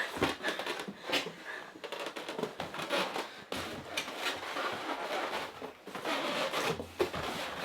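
Handling noises: rustling with irregular small knocks and clicks as items are unpacked and parts are handled.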